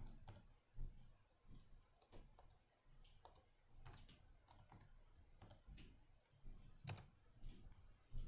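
Faint, irregular keystrokes on a computer keyboard, typing a file name one key at a time.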